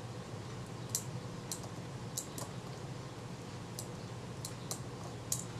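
Small, sharp metallic clicks, about seven scattered irregularly, as a steel tool and the levers of an opened Synchro-Compur leaf shutter from a Kodak Retina IIa are worked by hand, over a faint steady hum.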